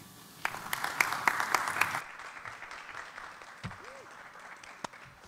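Audience applauding. The clapping starts about half a second in, is strongest for about a second and a half, then thins out and fades away.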